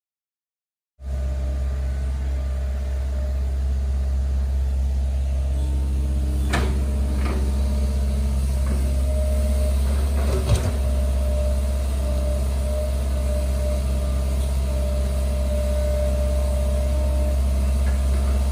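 Hitachi excavator's diesel engine running steadily under a digging load, with a deep, even hum, starting about a second in. A few sharp knocks stand out over it, the loudest about ten seconds in.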